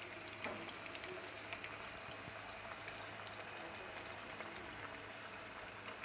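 Oil bubbling around a whole masala-marinated chicken that is deep-frying in a non-stick pan over a low flame: a steady, quiet bubbling with many small crackles.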